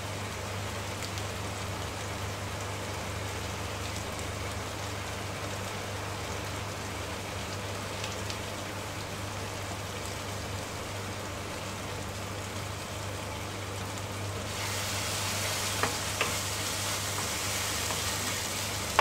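Tomato-onion masala sizzling in a nonstick frying pan, being fried until the tomatoes break down, over a steady low hum. About fourteen seconds in the sizzle grows louder as the masala is stirred briskly with a wooden spatula, with a couple of light knocks against the pan.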